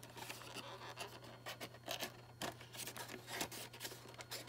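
Faint scratches and light clicks of an action figure's plastic blister tray and cardboard packaging being handled, over a steady low hum.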